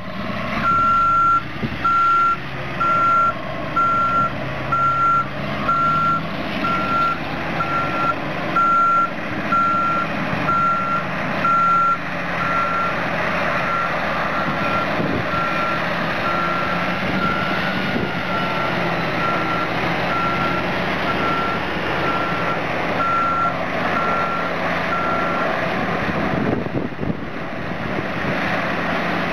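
Truck back-up alarm beeping at a steady pitch about once a second over diesel engine noise. The beeps are loudest at first, fade, and stop a few seconds before the end.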